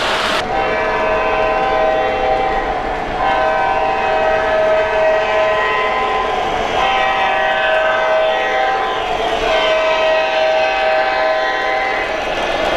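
Sampled diesel horn from the Proto-Sound 3 sound system of an MTH O gauge F59PHI locomotive, sounding several long chord blasts one after another.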